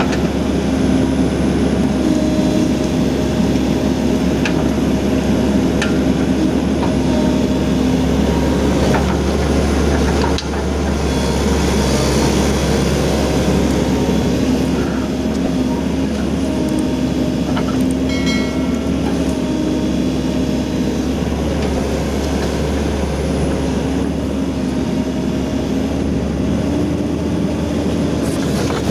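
Komatsu PC130-7 excavator's diesel engine running under load with its hydraulics working the boom and grapple, a steady drone with a few light knocks. The hydraulics are back to normal power after the reducing control valve was cleaned and its O-ring replaced.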